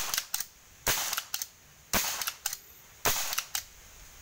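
Homemade PCP (pre-charged pneumatic) air shotgun with a 4000 psi monel air reservoir firing four sharp shots about a second apart. Each shot is followed by a pair of quieter clicks as the pump-style action is cycled to chamber the next round from the magazine.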